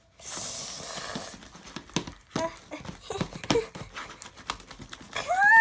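Slime being stirred hurriedly in a bowl, a utensil clicking and knocking against the bowl in quick irregular strokes. It ends with a short, loud vocal cry that rises and falls in pitch.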